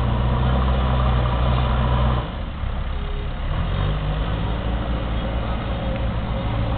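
Backhoe loader's diesel engine running under load with a steady low drone, which drops to a quieter, rougher note about two seconds in.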